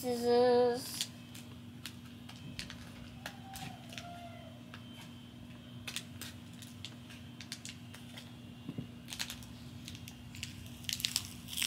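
A child's brief sung note, then faint small clicks and snips as plastic scissors cut open a small packet of powder and it is handled, with a cluster of clicks near the end.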